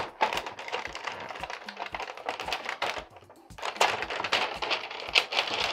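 Clear plastic film crinkling and crackling in a rapid run of small clicks as it is pulled and cut off a toy doctor-set tray, with a short lull about three seconds in.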